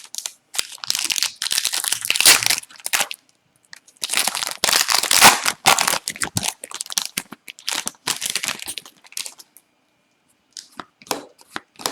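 A hockey card pack wrapper being torn open and crinkled in three rustling stretches, followed by a few light clicks near the end.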